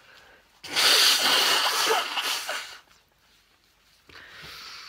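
A person blowing their nose hard into a tissue: one long blow of about two seconds, then a shorter, quieter one near the end.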